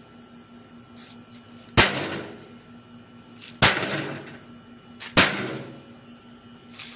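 Three hard blows striking the metal casing of a microwave oven, about one and a half seconds apart, each leaving a short fading ring, with a fourth blow landing right at the end.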